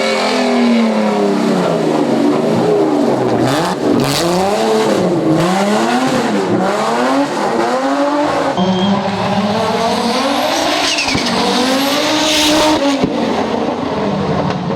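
Rally car engines revving hard. Their pitch climbs and drops again and again as they accelerate, change gear and lift off.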